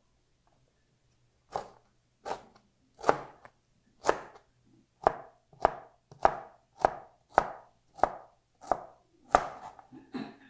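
Chef's knife chopping Korean zucchini and tomato into small dice on a cutting board: about thirteen separate cuts, starting about a second and a half in, roughly one every half second to second.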